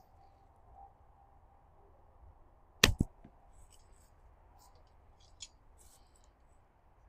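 An arrow striking the target about three seconds in: one sharp smack with a brief ring after it.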